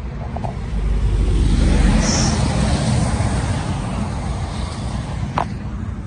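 Road traffic noise from a motorway-class dual carriageway: a steady rush that swells as a vehicle passes in the first few seconds, then eases.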